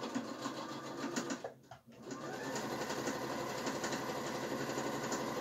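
Electric domestic sewing machine stitching a seam. It stops briefly about a second and a half in, then runs on steadily.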